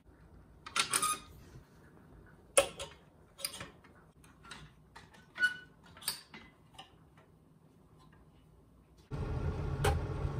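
Wooden clothes hangers clacking against one another, their metal hooks knocking and sliding on a metal clothes rail, in a run of sharp, uneven clicks. Near the end a steady low rushing noise starts.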